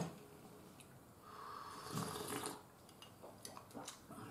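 Person slurping miso soup from a bowl: one soft, hissing slurp starting about a second in and lasting about a second and a half, with a sharp click at the start and a few faint ticks near the end.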